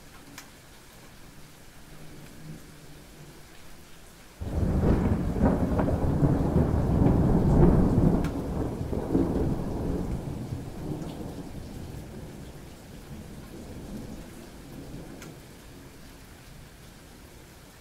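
Thunder: a sudden loud crack about four seconds in that rolls on as a long low rumble, loudest a few seconds later and dying away over about ten seconds. Light rain drips throughout.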